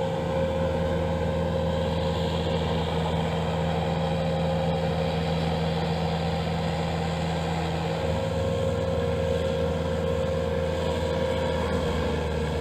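Engine of a Bobcat self-propelled weed mower running steadily at constant speed, with a steady whine over the engine note.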